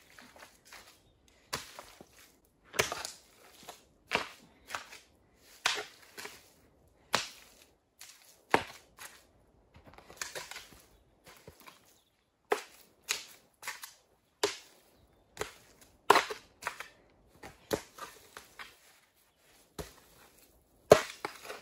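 Soil being shovelled and packed into a raised bed: a series of irregular scrapes and thuds, one every second or two.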